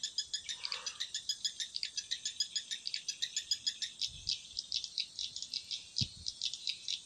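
Insects chirping in a fast, even train of short high-pitched pulses, many per second, with two soft low thumps in the second half.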